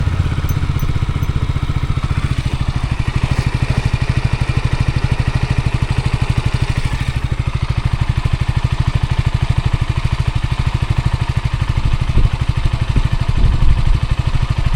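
Motorcycle engine running steadily with a fast, even pulsing, a little louder for a moment or two near the end.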